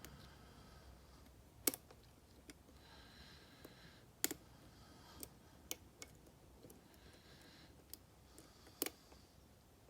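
Lock pick working the pin stack of a mortise lock cylinder under tension: sharp, irregular metallic clicks of pins and tools, four louder than the rest.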